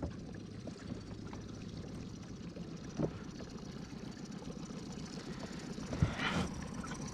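Small boat's motor running steadily at low speed on the water, with a knock about three seconds in and a louder thump about six seconds in.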